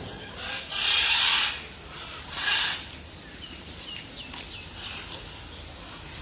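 Birds giving harsh, hissing calls, three of them in the first three seconds, the middle one the longest, followed by faint short chirps and ticks.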